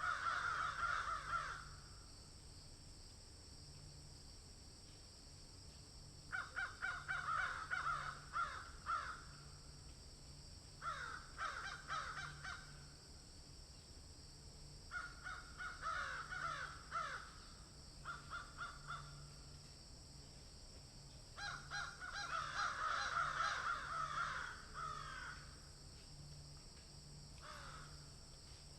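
Crows cawing in repeated bouts of rapid harsh caws, each bout lasting one to three seconds with pauses of a few seconds between, over a steady faint high hiss.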